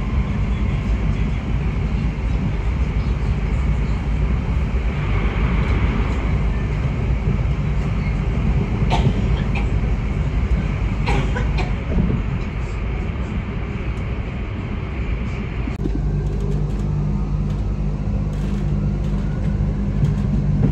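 Inside a moving passenger train: the steady hum and rumble of the train running along the track, with a few sharp clicks from the wheels partway through. About three-quarters of the way in, the higher hiss drops away and the low hum goes on.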